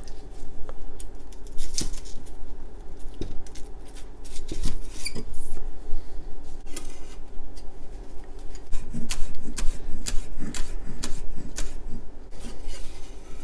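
A cleaver chopping green onions on a wooden cutting board: a run of uneven knocks as the blade strikes the board, closer together near the end.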